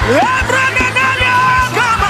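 Live gospel worship music. A singer's voice slides up and holds high notes over a steady band backing with a regular drum beat.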